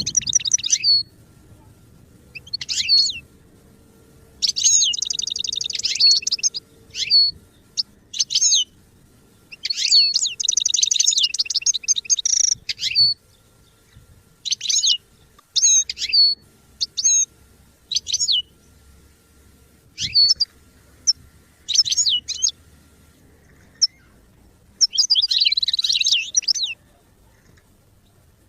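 European goldfinch singing: phrases of rapid twittering notes broken by short pauses, several of them fast trills.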